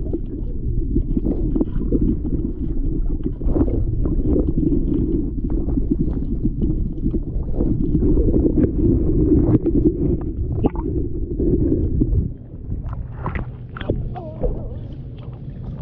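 Muffled underwater rumble and sloshing of water moving against the camera while submerged, with scattered faint clicks. About twelve seconds in it drops in level as the camera comes up to the surface.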